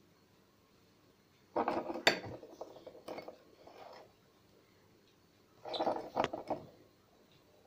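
Shards of a broken ceramic mug being moved on a hard tabletop, clinking and scraping in two short bursts, the second a few seconds after the first.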